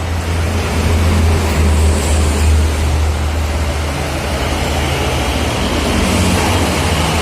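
Bus engine running with a deep, steady low rumble close by, while road and tyre noise swells in the second half as traffic comes past.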